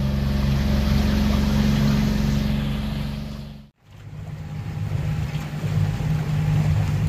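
Outboard motor of a small aluminium boat running steadily under way, with wind and water rushing. Just under four seconds in it breaks off abruptly and comes back running at a different, lower pitch.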